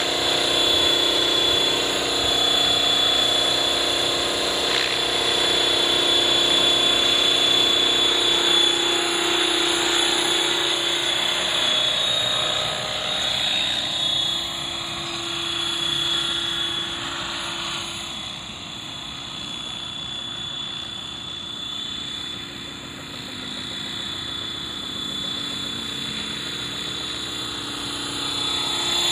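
Radio-controlled scale MD500 model helicopter in flight: a steady high whine from its drive with the whir of the spinning rotors. It grows somewhat quieter in the middle as the helicopter moves off, and louder again near the end.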